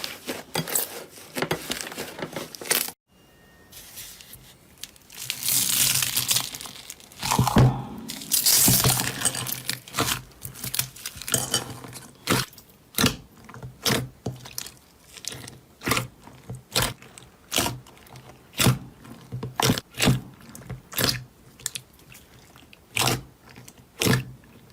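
Slime being squeezed and worked by hand: crackling and crunching, cut off abruptly about three seconds in. A longer squelchy, crinkly stretch follows, then a run of sharp pops, about one to two a second.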